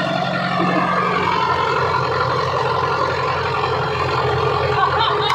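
Heavy diesel machinery engine running steadily under load.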